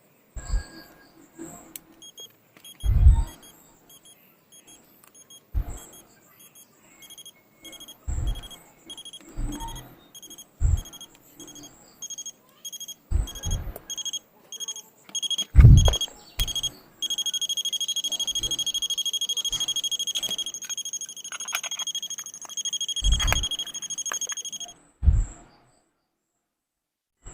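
Electronic alarm buzzer of an Orpat quartz alarm clock beeping: short high beeps repeating, then from about halfway a faster, almost unbroken beep that cuts off suddenly near the end. Several low knocks from the clock being handled.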